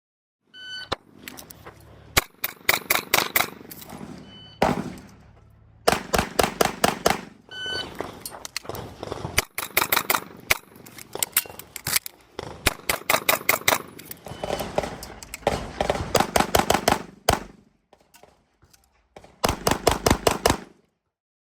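Rapid strings of pistol shots from a Kimber 2K11 during a timed practical-shooting stage run: fast bursts of several shots a second, broken by short pauses. A short beep comes just before the first shots, and the last string ends near the end.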